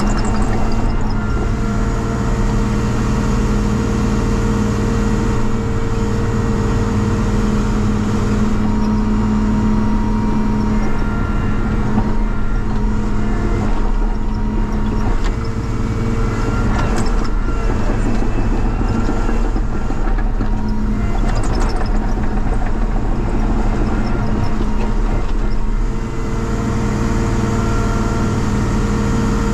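Cat 953C track loader's diesel engine running steadily, its muffler broken.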